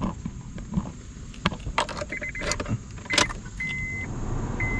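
Keys jangling and clicking in a Honda Accord's newly fitted ignition key cylinder, then the engine starting and running steadily while a warning chime beeps about once a second.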